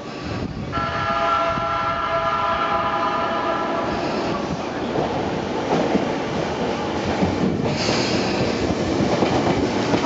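A train horn sounds a steady, multi-toned blast for about three seconds, and another blast begins at the very end. In between, a commuter train's wheels rumble and clatter on the rails.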